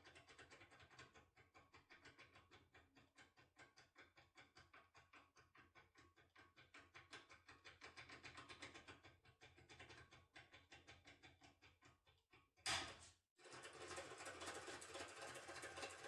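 Foil impression tool being rocked back and forth in an AGB Genio cylinder lock, making faint, even metal clicks about five times a second. About three-quarters of the way through there is a single louder sharp click, followed by a denser, faster rattle.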